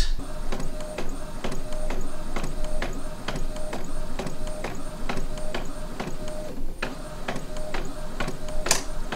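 Epson EcoTank ET-4800 inkjet printer printing a sheet of labels: the print-head carriage shuttles back and forth with a click at each pass, about two a second, over a steady motor tone. There is a short pause about two-thirds through and a sharper click near the end.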